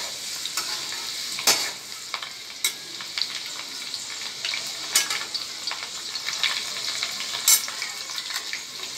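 Chopped garlic and green chillies sizzling steadily in hot oil in a metal kadhai, stirred with a metal spatula that clinks sharply against the pan several times.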